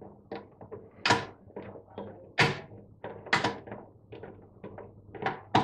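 Screwdriver undoing the small screws that hold the tumble dryer thermostats to the sheet-metal panel: a series of irregular clicks and light knocks of metal on metal, with louder knocks about one, two and a half and three and a half seconds in.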